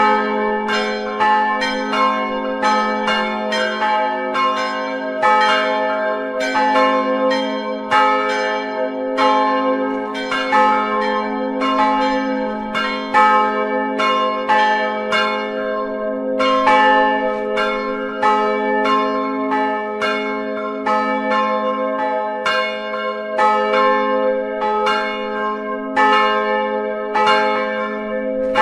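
Church bells ringing a continuous peal, about two strokes a second, each ringing on into the next over a sustained low hum.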